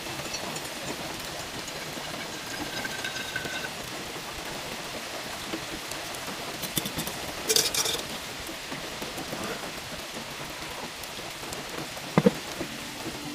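Steady patter of rain, with a thin stream of hot water trickling into a paper coffee filter at first. A short clatter about seven and a half seconds in, and a sharp knock near the end as a metal mug is handled.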